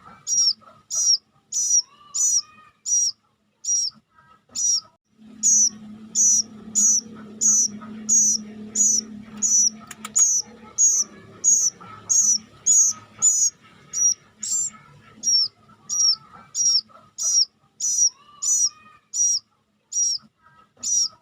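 Cuckoo chick (kedasih kelabu) begging with a long run of short, high-pitched calls, about two a second. A low hum joins in the background for a few seconds in the middle.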